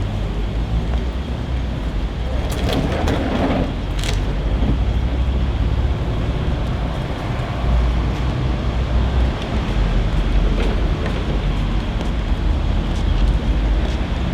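Everyday background sound of a small hair salon, dominated by a steady low rumble like distant traffic. A brief rustling burst with a few sharp clicks comes about three seconds in, and faint scattered clicks follow.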